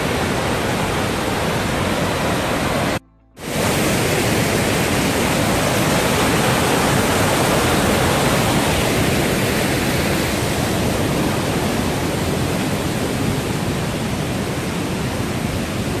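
Waterfall in full spate, running at its highest water level of the year: a loud, steady rush of pouring water that cuts out for a moment about three seconds in.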